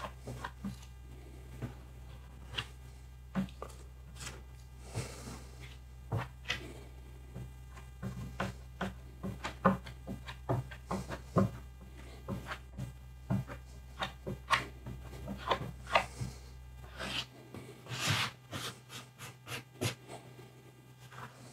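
Plastic spreader scraping polyester putty across a tabletop in short, uneven strokes, filling chips and dents in the surface.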